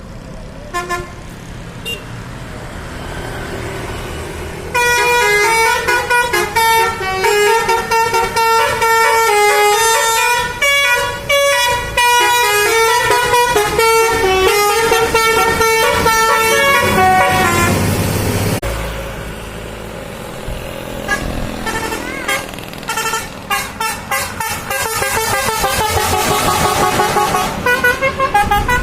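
Bus basuri telolet horn, a multi-tone musical horn, playing a tune of quick notes that step between pitches for about twelve seconds. After a short lull with a low rumble, it starts again with a fast run of short, repeated notes that gets louder near the end.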